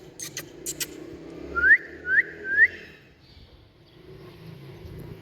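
Indian ringneck parrot giving three short rising whistles about half a second apart, after a few sharp clicks at the start.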